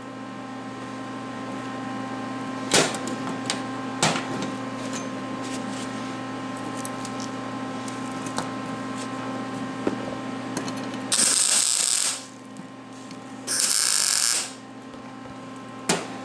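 Arc welder humming steadily, with two short crackling bursts of about a second each, about eleven and thirteen and a half seconds in: tack welds being laid on a steel jig. A few sharp clicks of metal being handled come earlier.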